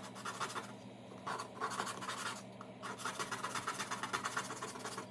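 Putty knife scraping baking-soda-softened latex paint off plywood in quick repeated scratchy strokes, pausing briefly twice.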